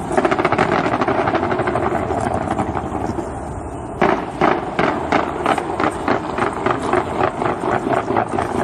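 Fireworks going off in rapid succession: a dense crackle of reports for the first three seconds or so, then a fresh burst about four seconds in followed by a steady run of bangs, several a second.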